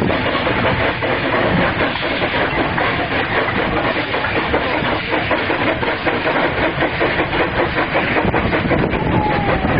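Two steam tank locomotives banking a twelve-wagon freight train up a steep incline, chuffing hard under load with steam hissing and the train rumbling along the rails.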